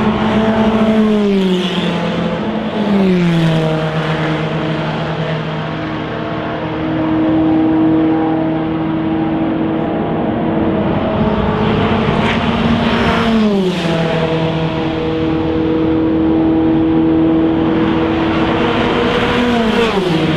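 Race car engines at high revs passing at speed one after another, among them the Ferrari 488 GTE's 3.9-litre twin-turbo V8. The engine note drops sharply in pitch as each car goes by, about four times: near the start, about 3 s in, about 13 s in, and at the end.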